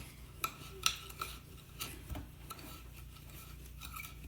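A utensil stirring a damp, grainy homemade dishwasher-detergent powder in a jar, with irregular scraping and clinking against the jar.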